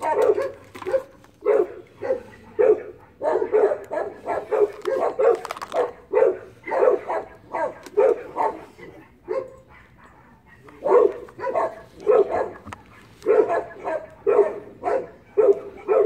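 A dog barking over and over, about two barks a second, with a pause of a second or so around two-thirds of the way through.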